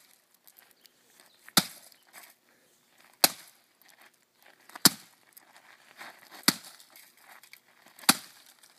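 Sledgehammer striking a laptop, five heavy blows at an even pace about one and a half seconds apart, each a sharp crack with a brief rattle of breaking plastic.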